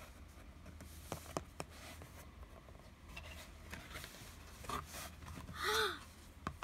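Handling of a thick board-book page as it is turned: soft clicks about a second in, then light rustling and scraping as the page flips over. Near the end there is a short breathy voice sound, the loudest thing in the stretch.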